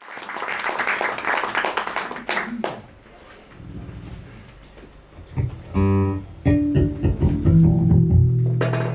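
Live experimental guitar music: a noisy crackling wash fades over the first three seconds, then plucked guitar notes ring out about six seconds in, and sustained low notes swell near the end.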